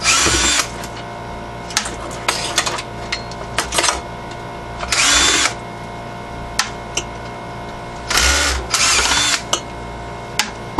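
Cordless drill backing screws out of a computer power supply's circuit board, running in short bursts of under a second: once at the start, once about five seconds in, and twice near the end. Clicks and clatter of the drill and metal parts being handled come between the bursts, over a steady hum.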